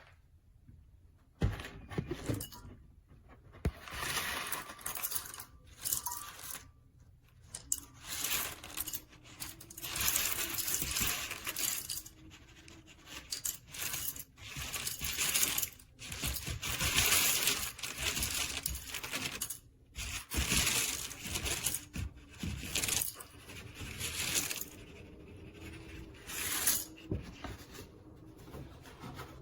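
Irregular bursts of metallic clinking, scraping and handling noise from a Timemore Chestnut C2 hand coffee grinder being handled and forced, its handle jammed. A sharp knock comes about a second and a half in, and another about two-thirds of the way through.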